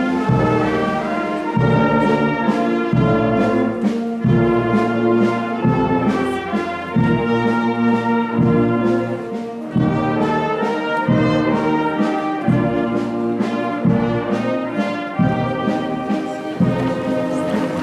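Brass band playing in a procession: full held chords, with the bass notes moving about every second or so.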